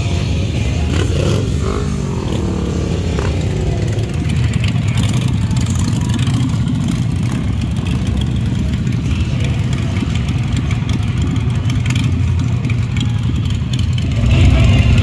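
Motorcycle engines running with a deep, steady low rumble, one revving briefly about a second in, and growing louder near the end.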